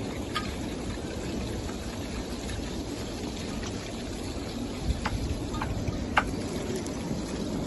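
Volcanic eruption and lava flow: a steady low rushing noise with a few sharp cracks, most of them about five to six seconds in.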